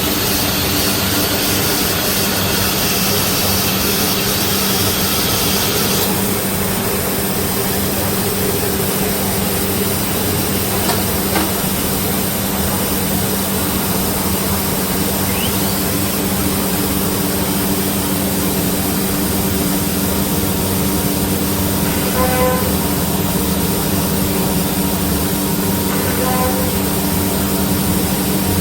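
Woodworking CNC router running with its spindle at 18,000 rpm: a steady machine hum under a hiss. The higher hiss drops away about six seconds in.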